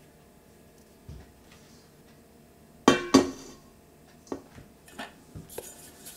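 Stainless steel bowls being set down and moved on a wooden table: one loud metallic clank with a short ring about three seconds in, then a few lighter knocks and clinks.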